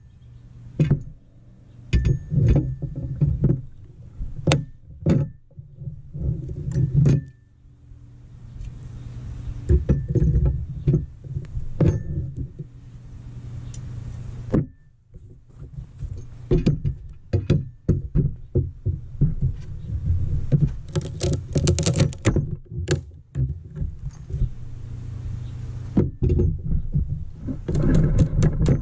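Homemade square-tubing pallet breaker prying boards off a wooden pallet: repeated knocks and clanks of the steel bar against the wood, with cracks and creaks as the boards lift and the nails pull free. A dense run of cracking comes a little past the middle.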